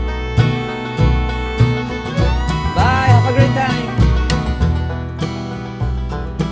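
Background music: upbeat country/bluegrass-style tune with plucked guitar and a steady beat.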